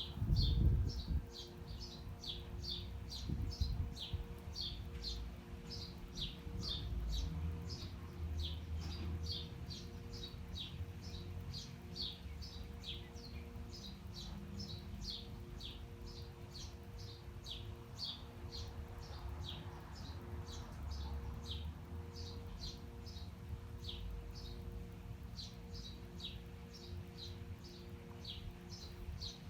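A bird chirping over and over in a rapid, steady series of short, high, down-slurred notes, about two to three a second, over the low background rumble of city traffic. A brief low thump comes at the very start.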